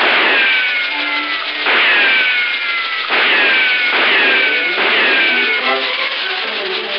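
Cartoon sound effects of fiery whooshes: about five hissing bursts in quick succession, each with a falling whistle like a firework rocket, while flames swirl around Mickey Mouse.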